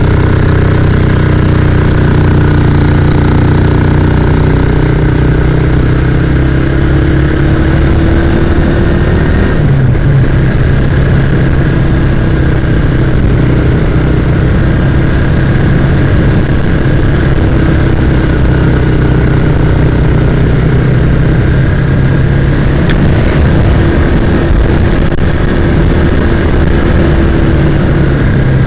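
Motorcycle engine running steadily while riding along an open road, the engine note holding even with a brief change about ten seconds in.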